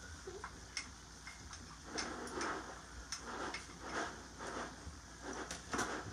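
Light kitchen clatter: scattered clicks and knocks with a few soft scraping stretches, from a spoon stirring in a skillet and a cabinet being rummaged through.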